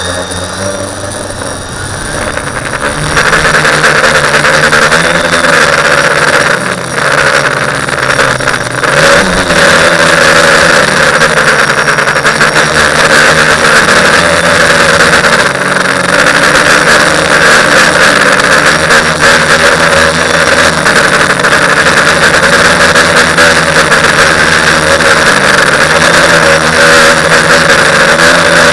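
TBS Discovery quadcopter's electric motors and propellers buzzing in flight, the pitch rising and falling as the throttle changes. It gets louder about three seconds in.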